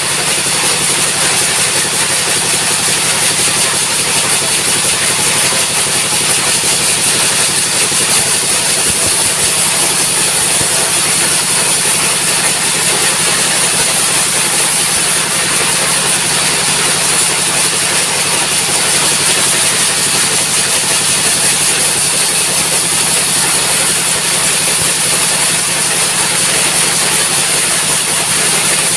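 Sawmill engine running steadily and loudly, with a steady high-pitched whine over it.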